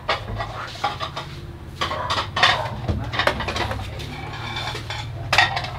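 Ceramic rice bowls clinking and knocking against each other and on the tabletop as they are handled and stacked: a string of sharp clinks, the loudest near the end.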